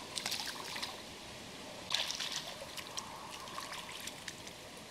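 Water splashing and trickling at the river's edge as a small fish is released back into the river by hand, with short splashes in the first second and the loudest about two seconds in.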